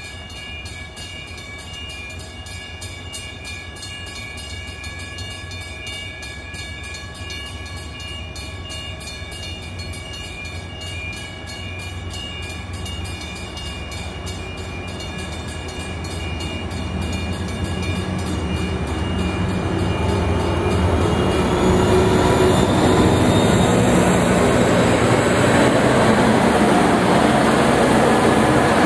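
Freight train's diesel locomotives approaching, their engine rumble and wheel noise building steadily from faint to loud over the second half, as the lead units reach and pass the listener near the end.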